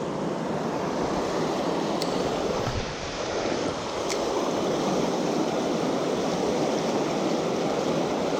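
A large, fast river rushing steadily over rocks and rapids, with two faint clicks about two and four seconds in.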